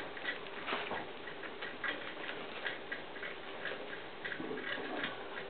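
Steady ticking, about three ticks a second, with one louder knock a little under a second in.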